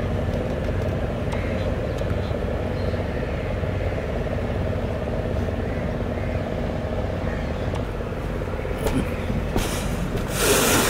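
Houseboat engine running steadily, a low drone heard from on board the moving boat. Near the end a brief, loud rush of noise.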